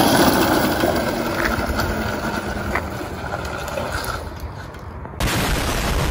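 Homemade electric go-kart rolling past on asphalt, its wheels and motor running and fading as it moves away. About five seconds in, a sudden loud explosion sound effect cuts in.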